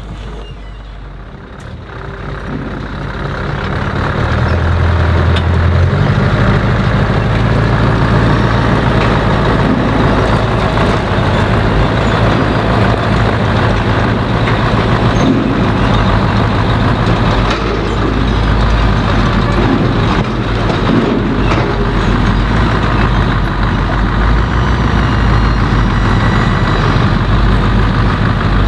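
Scania R500 timber truck's V8 diesel engine running as the truck rolls slowly closer. It grows louder over the first few seconds, then holds steady and deep.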